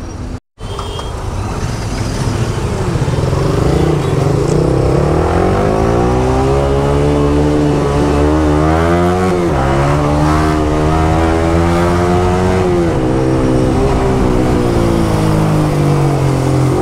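Yamaha R15 V3's single-cylinder engine pulling hard as the bike accelerates, its pitch rising steadily and then dropping at an upshift about nine seconds in. It then holds and eases off slightly near the end, over wind and road noise.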